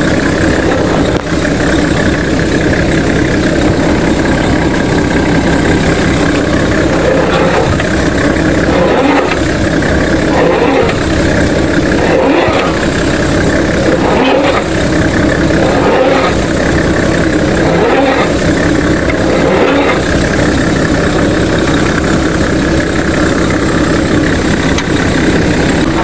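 Off-road 4x4 vehicle's engine running steadily under load while working through deep red-clay mud, with a pulsing rise and fall about once a second through the middle stretch.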